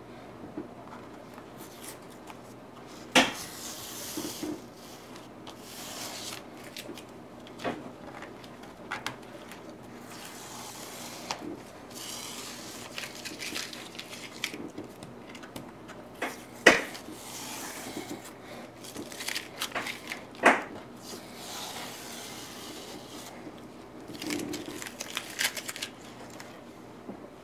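Painter's masking tape being peeled off the edges of watercolour paper in several short rasping pulls, with a few sharp knocks on the table in between, the loudest about three, seventeen and twenty seconds in.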